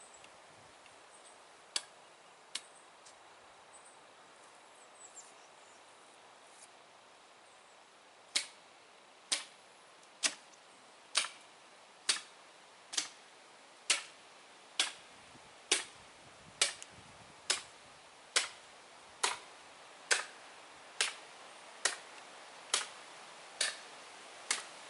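Rib chopper blade chopping through a hog carcass's ribs beside the backbone: two sharp blows, a pause of several seconds, then a steady run of about twenty chops, roughly one a second.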